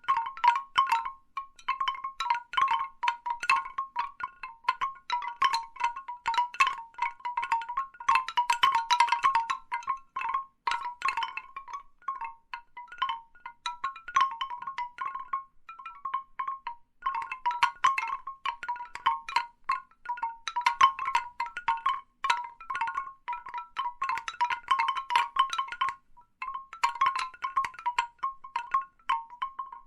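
Large bamboo wind chimes clacking irregularly, the tubes knocking together in ringing clicks. The knocks come in thick flurries about a third of the way in and again near the end, and thin out midway.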